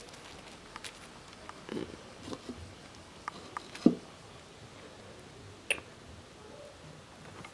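Scattered light clicks and soft knocks of handling, with a louder knock about four seconds in and a sharp click near six seconds.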